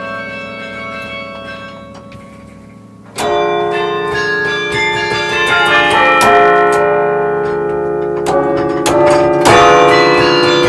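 Carillon bells played from the baton keyboard: held notes ring and die away, then about three seconds in a loud chord opens a run of struck bell notes, with more loud chords near the end.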